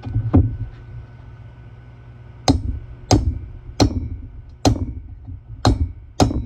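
Hammer tapping a new valve guide into a cylinder head's guide boss: two light taps, then from about two and a half seconds in a steady series of harder blows, roughly one every 0.7 s, each ringing briefly.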